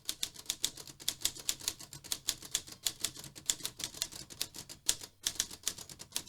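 Typewriter keys being struck in quick succession, about five strikes a second, with a brief pause about five seconds in.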